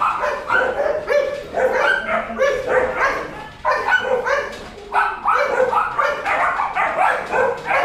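Several kennelled dogs, German Shepherds among them, barking over one another in a rapid, nearly unbroken run of barks.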